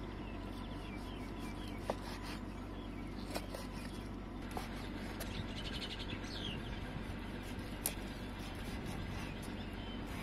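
A knife slicing raw chicken breast on a wooden chopping board, with a few sharp taps as the blade meets the wood. Birds chirp over a steady low background noise.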